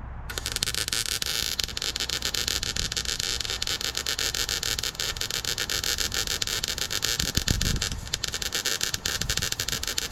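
Electric arc welding on the tractor's steel front axle: a steady, dense crackle of the arc that starts about a third of a second in and breaks off briefly near the end before resuming.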